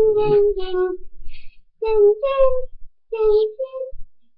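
A young girl singing a song in three short phrases of held notes, with brief pauses between them.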